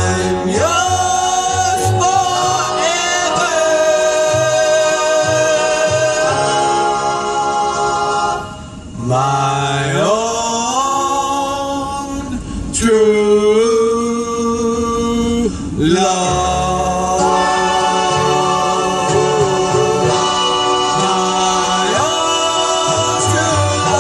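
A man singing a slow ballad in long held, sliding notes, over an accompaniment with a changing bass line.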